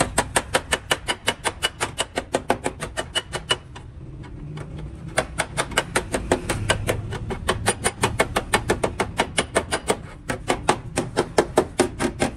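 Rapid, evenly spaced tapping, about six strikes a second, in runs broken by short pauses about four and ten seconds in.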